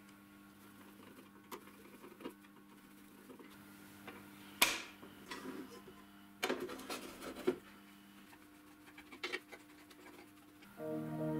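Handling noises while working on the saw's frame and its frequency-converter wiring: scattered light clicks and knocks, with one sharp metallic clink about four and a half seconds in and a cluster of rattles a couple of seconds later, over a faint steady hum. Music comes in near the end.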